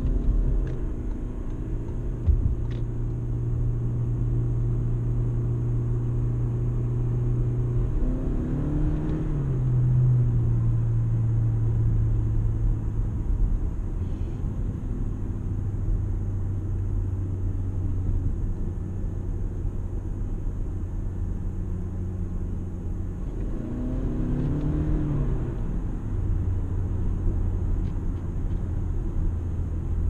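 Toyota Camry Hybrid on the move: a steady low drone of engine and road noise. Its pitch wavers briefly about eight seconds in and again about twenty-four seconds in.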